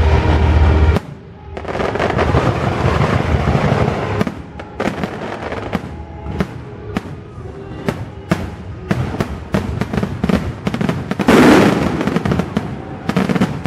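Fireworks show: shells bursting in a run of sharp bangs and crackle that come faster toward the end, with the loudest burst of crackling a little after 11 seconds. The show's music soundtrack plays under the first second or so, its low held note cutting off suddenly.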